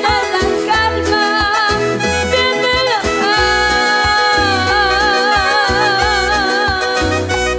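Live Latin Christian music led by an electronic keyboard: a melody with vibrato over steady bass notes and a drum beat.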